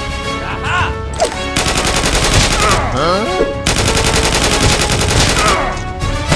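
Rapid, continuous gunfire sound effects, with swooping whistle-like glides rising and falling three times.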